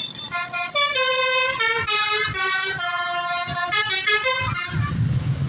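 Bus's basuri telolet musical air horn playing a quick tune of held notes that step up and down in pitch, stopping near the end as a low engine rumble comes up.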